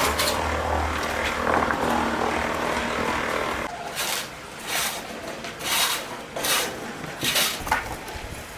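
A motor runs steadily with a low hum and stops abruptly about three and a half seconds in. It is followed by a series of short scrapes, roughly one a second, like stone or a tool scraping on a rough surface.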